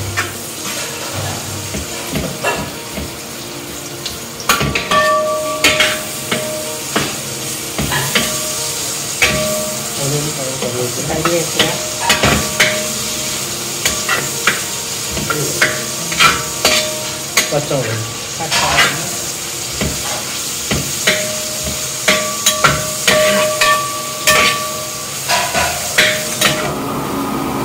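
Sliced onions and green chillies sizzling in hot coconut oil in a wide metal uruli. A steel spatula stirs them, scraping and clicking against the pan, and now and then the pan rings briefly.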